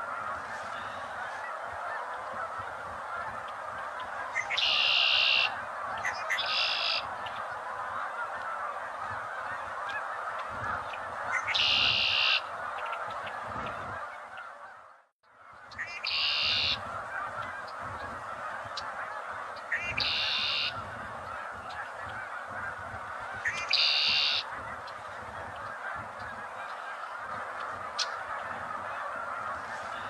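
Male red-winged blackbird singing its conk-la-ree song six times, each a short lead-in note followed by a buzzy trill of about a second. Behind it runs a steady dense din of a large bird flock, and the sound drops out briefly about halfway through.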